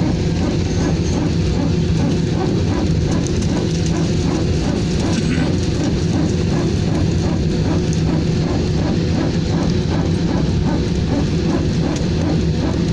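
Steady drone inside an airliner cabin: an even, loud hum with a constant high tone, with a murmur of voices underneath.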